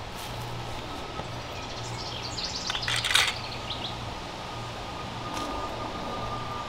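Outdoor ambience on a grassy lawn: faint bird chirps over a steady background hiss and a thin steady high tone, with a brief light clatter about three seconds in.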